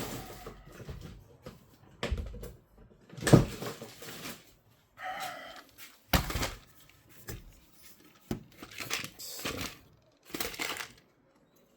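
Rummaging through small parts in search of a washer: a string of irregular knocks, clicks and rustles, the loudest knocks about three and six seconds in.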